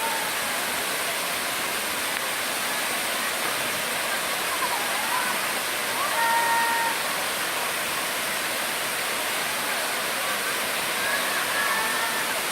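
Waterfall running: a steady, dense rush of falling water, even throughout. A few faint, brief voice-like tones rise above it about six and eleven seconds in.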